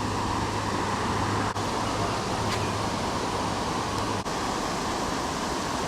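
Creek water rushing steadily. A low hum sits under it and stops about four seconds in.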